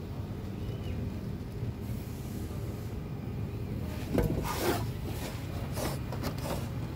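Rubbing and scraping of a hand and arm reaching in among a car's engine parts, over a steady low rumble. The scrapes come as a cluster of short strokes from about four seconds in.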